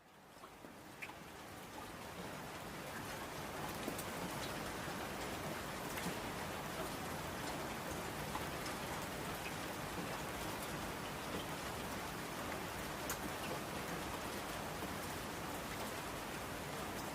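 Steady rain on a window glass, fading in from silence over the first few seconds, with scattered sharp ticks of single drops.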